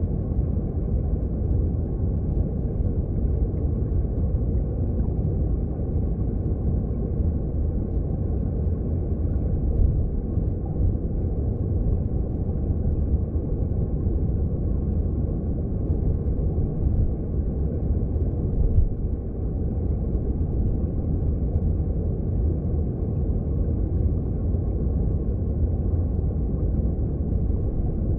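Mountain stream heard underwater: a steady, low, muffled rumble of flowing water with no distinct splashes or bubbles standing out.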